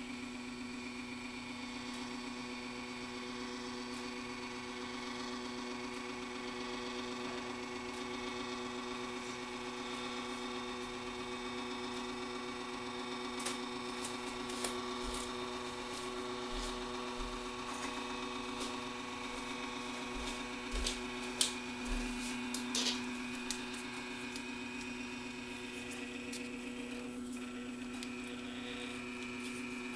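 Stepper motor of a camera pan-tilt robot turning the tilt axis through a worm gear, stepping at a steady rate: a steady whine at a constant pitch. Light clicks and a few soft knocks come in the middle stretch, loudest a little past two-thirds of the way through.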